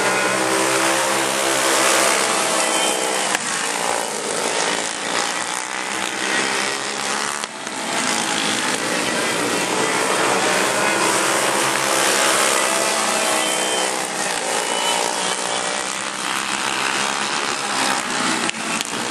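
Several racing go-kart engines running together as the pack laps the oval, their pitch rising and falling as karts accelerate and pass, over a constant hiss.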